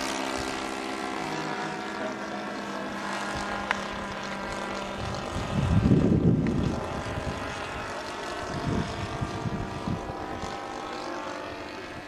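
Seagull Edge 540 model plane's 26cc two-stroke petrol engine and propeller droning steadily in flight high overhead, the drone slowly fading. A muffled low rumble breaks in about halfway through.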